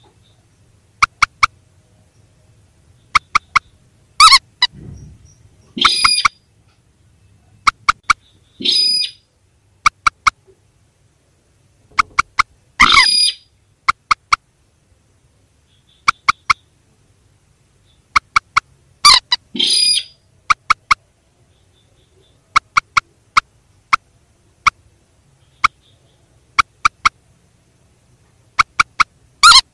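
Recorded calls of rails, the mandar and sintar birds, played as a lure. Quick clicking notes in pairs and threes repeat about once a second, broken every few seconds by a louder, harsher call about half a second long.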